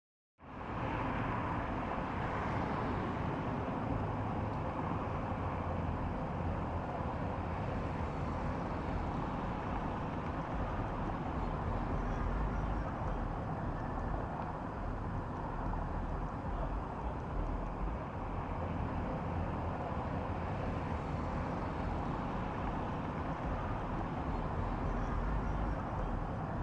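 Steady low rumble and hiss of background noise, starting about half a second in and holding level throughout, with no distinct events.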